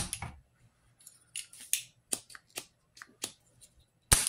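Spring-loaded desoldering pump (solder sucker) clacking as its plunger snaps, once at the start and louder about four seconds in, with a run of lighter clicks from handling the pump in between.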